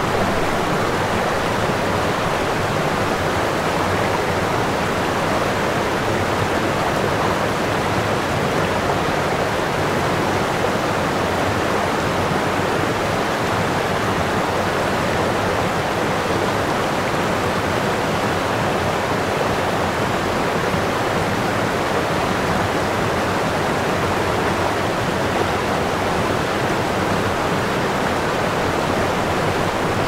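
A steady, even rushing noise like running water, with no rhythm or separate sounds in it.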